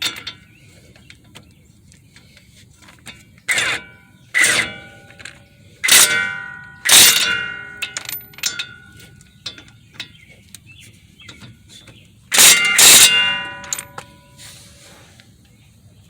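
Steel tools and brake parts clanking against each other, about six sharp metallic strikes that each ring on briefly like a bell, with quieter clicks between, during work on the front brake caliper bracket and hub.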